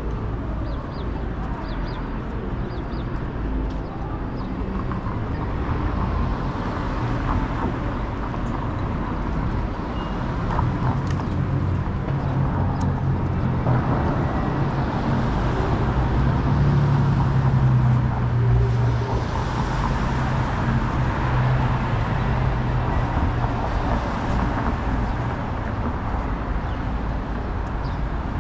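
Downtown street traffic: steady hum of passing cars, with a heavier vehicle's low engine drone swelling through the middle and fading again.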